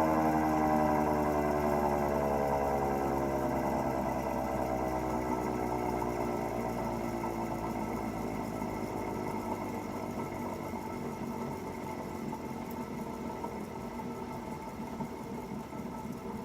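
Unrestored air raid siren winding down after its howl: its tone slowly falls in pitch and fades over the first several seconds. A rough mechanical rattle is left as the siren slows.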